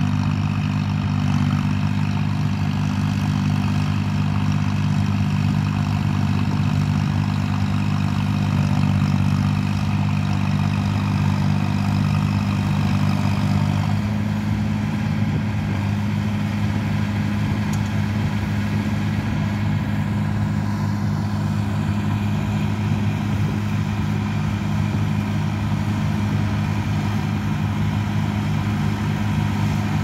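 Tractor diesel engine running steadily as it pulls a plough through the ground. About halfway through, the engine note changes to a more pulsing one.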